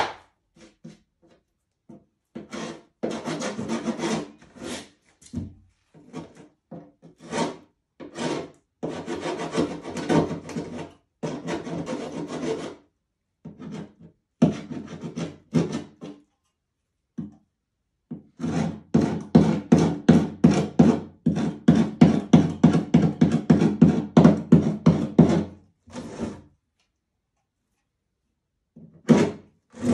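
Broad metal scraper drawn back and forth over plastic film on a painted canvas, in runs of short scraping strokes with pauses between; the longest and loudest run, several strokes a second, comes in the second half.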